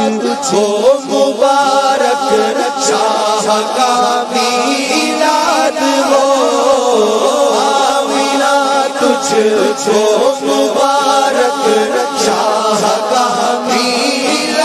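A group of voices chanting together in a sung, devotional chant, continuing without a break.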